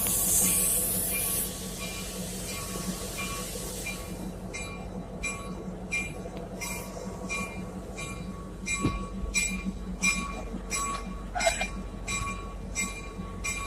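A train rumbling steadily, with a hiss at the start, and from about four seconds in a bell ringing at an even pace, roughly three strikes every two seconds.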